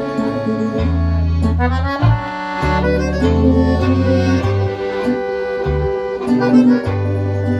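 Chromatic button accordion playing a tune: a melody on the treble side over bass notes that change every half-second or so.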